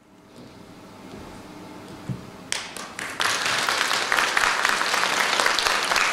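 Audience applauding: faint room noise, then clapping breaks out about two and a half seconds in and quickly swells to full, steady applause.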